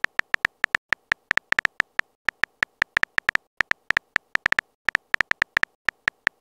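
Simulated phone-keyboard typing clicks from a texting-story app: short, bright electronic ticks at an uneven pace of a little over six a second, one for each letter typed.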